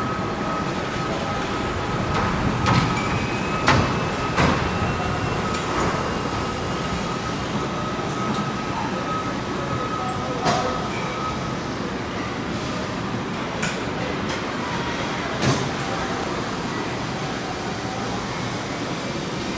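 Car assembly plant ambience heard from a moving electric tour cart: a steady machinery hum with a high steady tone through the first half, and scattered sharp clanks and knocks.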